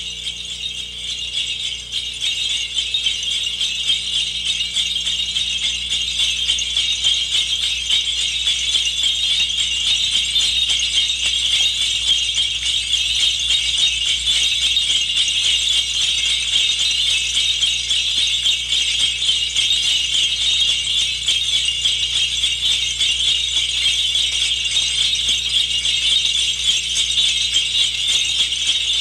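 Sleigh bells jingling in a steady, continuous shake, fading in over the first couple of seconds.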